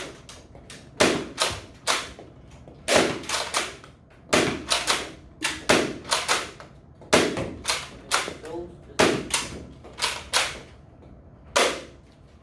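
Nerf Rival foam-ball blaster being primed and fired over and over: a string of sharp snaps and clacks, coming in twos and threes about every second.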